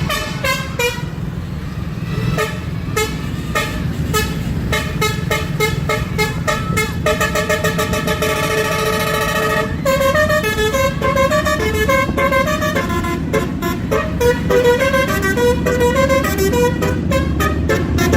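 A bus's horn sounds a quick run of short notes at changing pitches, like a tune, with one long held note in the middle. A steady low engine rumble runs underneath.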